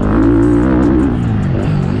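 Motocross bike engine revving up and down, its pitch wavering as the throttle changes, under background music with guitar.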